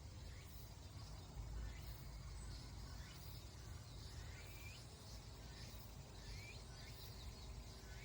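Faint woodland ambience: a bird gives scattered short, gliding chirps every second or so over a low steady rumble.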